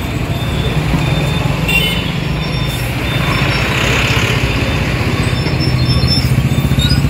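A heavy engine running steadily at a low, even pitch.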